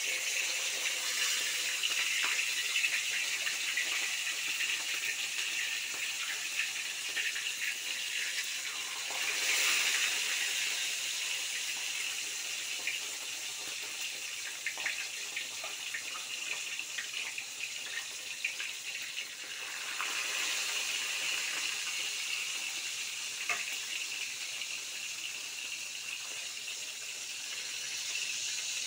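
Whole fish frying in hot oil in a steel wok: a steady sizzle with fine crackling that starts suddenly as the first fish goes into the oil. It swells again about nine and twenty seconds in, as more fish are added.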